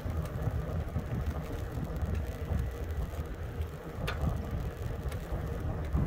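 Low, uneven rumble of wind buffeting the microphone on a moving e-bike, mixed with rolling noise, and a single sharp click about four seconds in.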